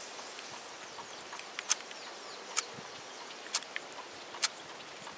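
Matches struck against a rain-soaked matchbox: four short, sharp scratches about a second apart, with a couple of fainter ones between, as he tries again and again to get a light.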